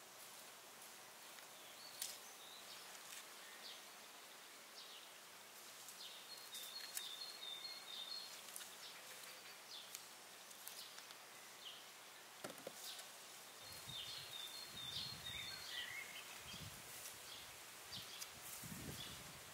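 Faint outdoor ambience: a bird chirps in two short runs of quick high notes, with a falling chirp after the second run. Scattered light clicks run through it, and low rumbling bursts come in over the second half.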